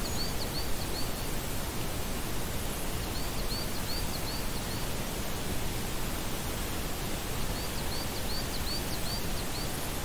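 Steady wind noise on the microphone and through the meadow grass. Over it, a small bird gives three short runs of quick, high chirps, about three to four seconds apart.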